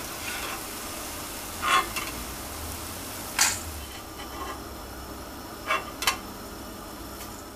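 Boondhi (gram-flour batter drops) sizzling steadily in hot oil in a stainless steel kadai while a perforated steel ladle scoops them out three-quarters cooked. The ladle scrapes and clinks against the pan a few times.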